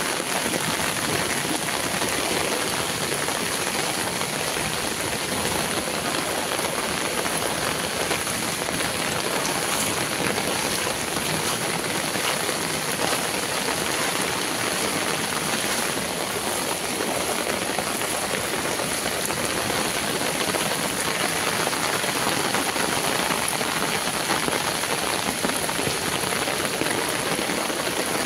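Heavy rain pouring steadily, a dense, even hiss of rain falling on surfaces and on standing floodwater.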